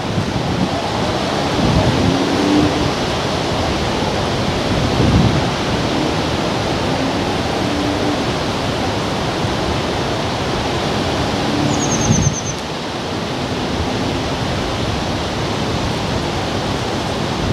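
Wind blowing on the microphone: a loud, steady rush with low buffeting gusts. A short high-pitched trill of a few notes sounds about twelve seconds in.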